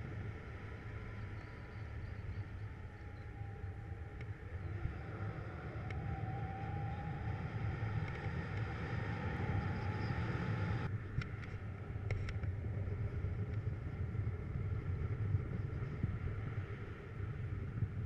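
Wind rushing over the microphone in paraglider flight, a steady low buffeting. A faint whistling tone drifts in pitch and stops suddenly about eleven seconds in, followed by a few clicks.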